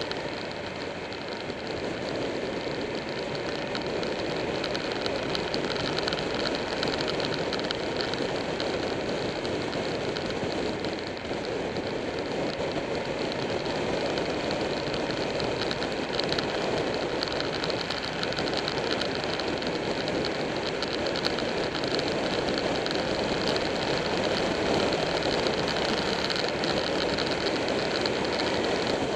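Motorcycle underway at road speed: steady wind rush over the bike-mounted microphone mixed with the engine's drone and tyre noise, holding even throughout.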